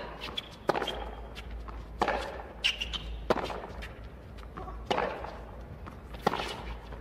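A tennis rally: rackets striking the ball with sharp pops, roughly one every second and a half, over a low hum of stadium background.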